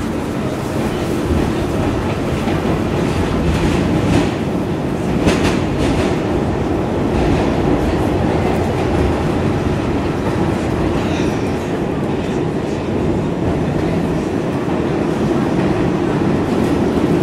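R46 subway car running at speed, heard from inside the car: a steady loud rumble of wheels on rail with the clickety-clack of rail joints, and a few sharper clicks about four to six seconds in.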